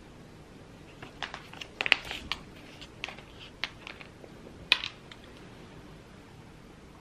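Crinkling of food packaging being handled, with a few sharp clicks and taps in among it; the loudest clicks come about two seconds in and again near five seconds.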